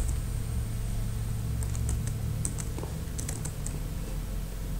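Scattered, irregular clicks of a computer keyboard over a steady low hum.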